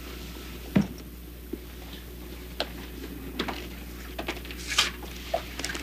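Quiet room tone with a steady low hum and a scattered handful of soft clicks and knocks. The firmest is a dull knock about a second in.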